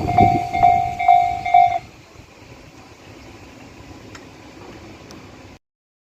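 Japanese railway level-crossing warning bell ringing its repeating electronic ding about twice a second over the rumble of a passing electric train. Both stop about two seconds in, as the train clears and the alarm switches off, leaving only faint background noise.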